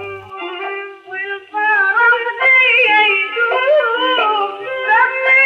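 A woman singing an old Baghdadi song in a wavering, ornamented melody. It grows markedly louder about one and a half seconds in.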